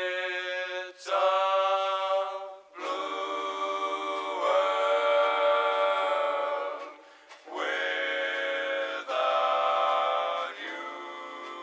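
Background music: held, choir-like sung chords, each lasting a second or two before shifting to the next, with brief gaps between them.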